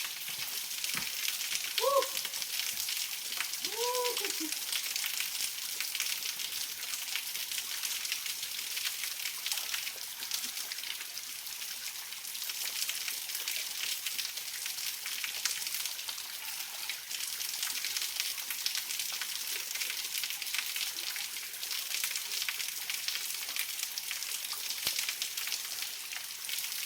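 Water of a small waterfall falling and splashing, a steady crackling hiss; the falls are running thinly with the low dry-season flow. Two brief pitched sounds come about two and four seconds in.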